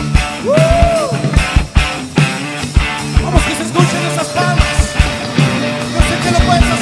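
Live band playing an upbeat rock-style song: drum kit with a driving kick-drum beat under guitar and keyboards, one note bending up and back down about half a second in.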